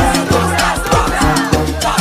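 Upbeat dance music with a steady beat, bass line and percussion.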